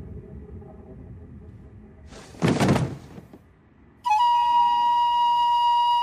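Cartoon soundtrack: about two and a half seconds in, a brief loud burst of noise. From about four seconds in, a single steady high whistle-like note, like a flute, starts and is held.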